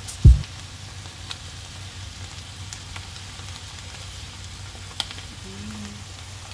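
Stir-fried udon noodles and prawns sizzling in a hot cast-iron skillet: a steady hiss with a few small crackles. A single dull thump comes just after the start.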